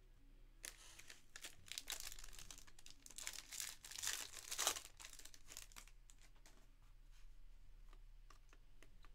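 A foil trading-card pack being torn open, its wrapper crinkling and tearing, loudest about four seconds in. After that come faint clicks of the cards being handled.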